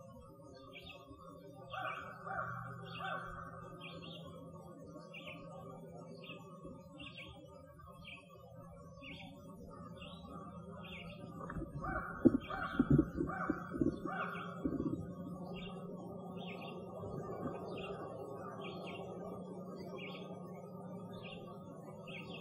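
Sony IC digital voice recorder being handled: a cluster of sharp knocks and rubbing from the jostled recorder about twelve seconds in, lasting a couple of seconds. Under it, a bird repeats a short high chirp just over once a second, with other lower calls now and then.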